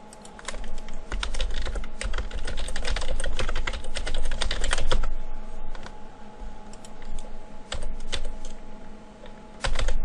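Typing on a computer keyboard: quick runs of keystrokes for the first five seconds or so, then scattered taps, and a short flurry of keys near the end. A steady hum runs underneath.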